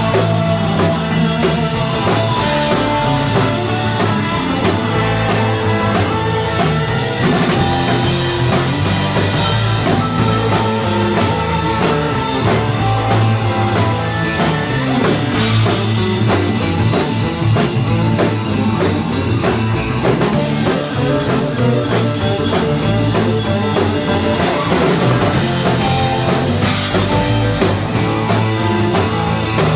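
Live instrumental surf rock band playing: electric guitars over bass and a drum kit keeping a steady beat.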